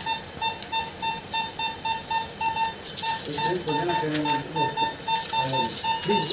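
Rapid, evenly spaced electronic beeping from operating-theatre equipment, with low murmuring voices in the middle. A steady electronic tone at the same pitch starts near the end.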